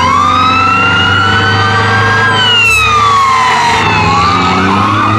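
Fire engine siren wailing, rising in pitch over about two seconds, falling, then rising again near the end, with a second siren tone crossing it, over the low rumble of the truck's engine.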